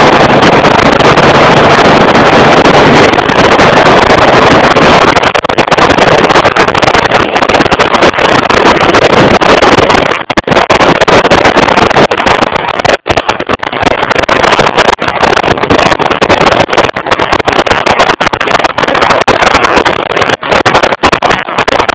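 Motorcycle riding at road speed: loud, distorted wind rush over the camera microphone mixed with engine noise, with brief cut-outs in the sound from about ten seconds in.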